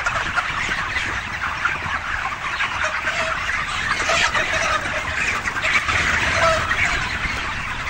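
A shed full of broiler chickens about five weeks old calling all at once: a dense, steady chorus of many overlapping short chirps and clucks.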